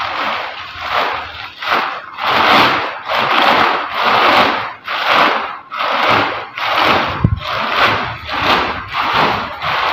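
Plastic inner liner of a wall-putty sack crinkling and rustling as it is pulled open and bunched by hand, in repeated surges about once a second. There is a dull thump about seven seconds in.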